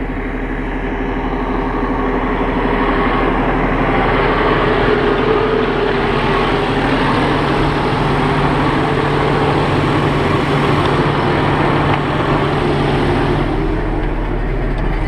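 JCB Fastrac 8310 tractor's diesel engine running steadily as the tractor drives along, pulling a tanker trailer.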